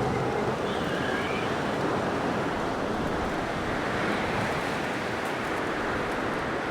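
Blizzard wind blowing in a steady rush, with faint brief whistling tones about a second in.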